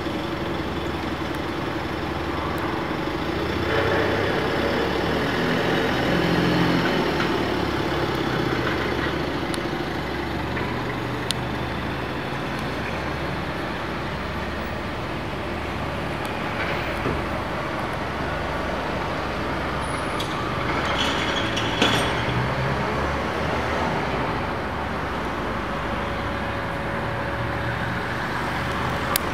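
Steady background rumble and hiss that swells slightly about four to seven seconds in, with a few short sharp clicks.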